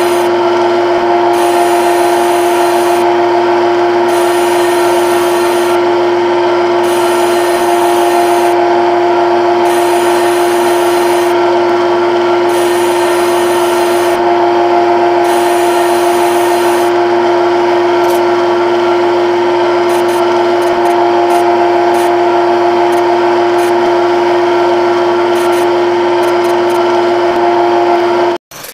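Simulated CNC lathe machining sound from a lathe simulator: a steady spindle hum with a cutting hiss that comes and goes about every second and a half as the threading tool makes its passes. About two-thirds of the way in it changes to quick ticks as the parting tool works. It stops abruptly just before the end.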